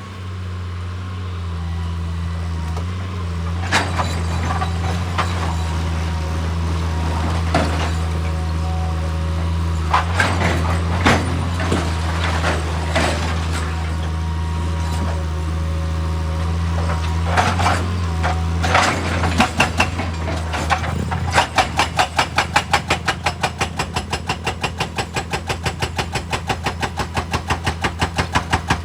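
Heavy diesel machinery running steadily, with scattered knocks and clanks. About two-thirds through, a rapid, regular hammering sets in, a few strokes a second.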